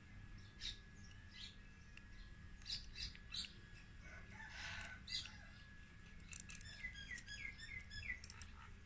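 Faint bird calls: short, high chirps here and there, then a quick run of falling notes near the end.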